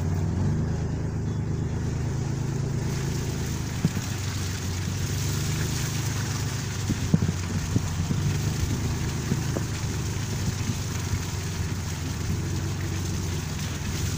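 Steady hum of a car engine with road noise, and a few faint knocks about four and seven seconds in.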